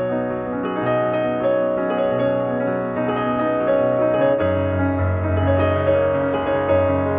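Soft, slow piano music with sustained notes over a held bass, the bass dropping lower about halfway through.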